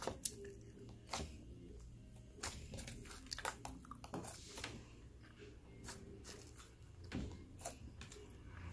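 Slime being squished and poked by hand: scattered, irregular small clicks and pops.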